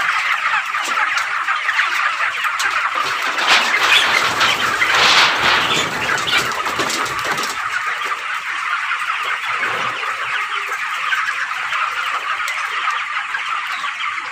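Dense, unbroken chorus of cheeping from a large flock of 25-day-old broiler chickens, many birds peeping at once. A louder, rougher rush of noise swells over it about four seconds in and fades by about six seconds.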